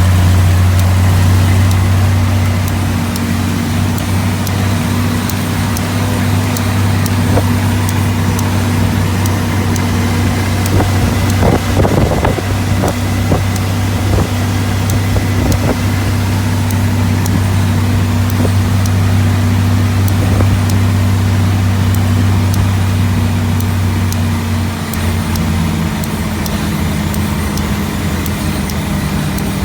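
1942 Dodge WC-52's flathead six-cylinder engine and drivetrain droning steadily while driving under way, with many small ticks over it. There is a rougher clattering stretch about midway, and the drone eases off near the end.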